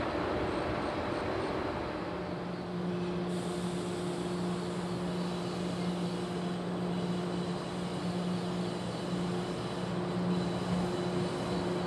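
Local electric multiple unit train at a station platform, its equipment giving a steady low hum that sets in about two seconds in and holds over a rushing background noise.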